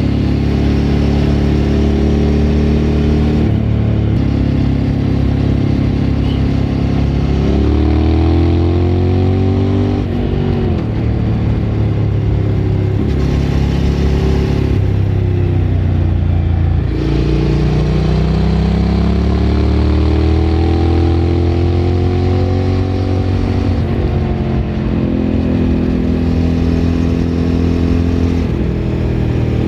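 Suzuki V-Strom 1000's V-twin engine through a Remus aftermarket exhaust, heard onboard while riding. It holds steady stretches broken by sudden steps in pitch at gear changes. Twice it climbs in pitch under acceleration, then falls away as the throttle is rolled off.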